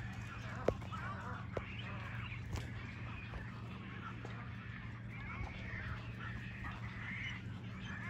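A roosting colony of seabirds in mangroves, juvenile frigatebirds among them, calling over one another: many short overlapping squawking calls, with a few sharp clicks in the first couple of seconds.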